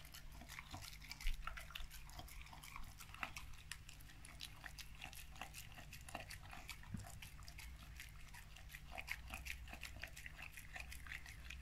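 A Labrador mix eating a soft, moist vegetable mash from a stainless steel bowl: faint, quick chewing and smacking clicks, several a second, with one louder click about a second in.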